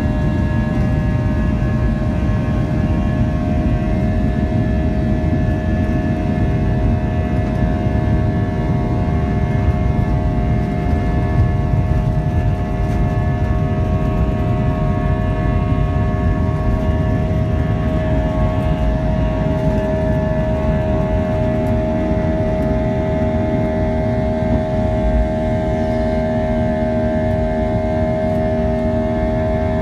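Airbus A320-232's IAE V2500 engines at takeoff thrust, heard from inside the cabin: a loud, steady buzz of several held tones over a deep rumble. The buzz is the fan's buzz-saw noise at high power. Past the middle, a lower tone joins in.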